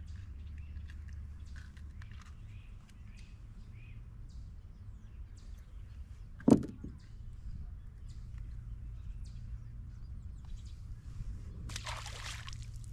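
A small bass splashing into the water as it is released over the side of the boat, near the end. About halfway through there is a single sharp thump, the loudest sound. A low steady rumble runs underneath.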